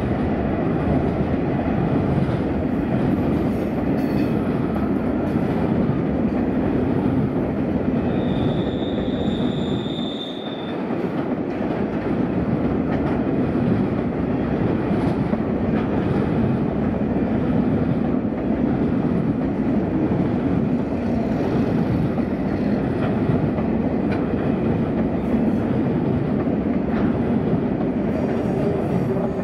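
Freight train's grain hopper wagons rolling past, a steady rumble of steel wheels on the rails. About eight seconds in, a high, steady squeal sounds for roughly two seconds.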